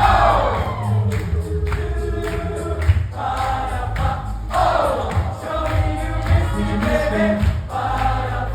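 Music: a song of layered group vocal harmonies over a heavy low bass, with sweeping downward vocal runs, one right at the start and another about four and a half seconds in.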